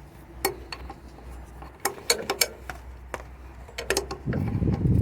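Adjustable wrench clicking and clinking against an air-line fitting as it is snugged down on a truck's quick release brake valve, a dozen or so sharp irregular metal clicks. A low rumbling noise comes in near the end.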